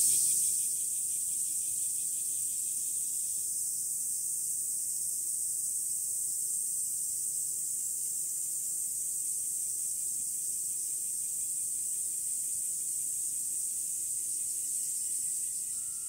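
Cicadas shrilling in chorus: a steady, high buzz, with a fainter pulsing layer underneath that stops a few seconds in.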